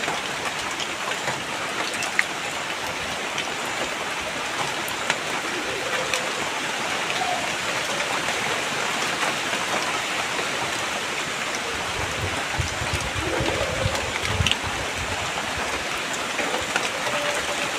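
Steady rain with scattered drops tapping, a continuous hiss. A low rumble swells underneath for a few seconds past the middle.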